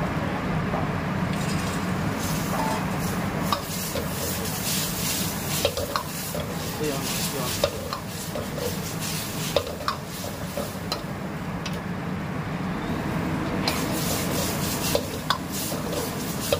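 A long metal ladle stirring and scraping food around a large steel wok, with sharp clinks of the ladle against the pan every second or two, over steady sizzling of food frying on high heat.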